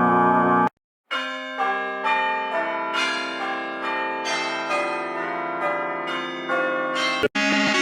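A short melody of bell-like chimes: struck notes that ring on and overlap, a new one about every half second. It follows a keyboard-like music clip that cuts off less than a second in. A different music clip begins near the end.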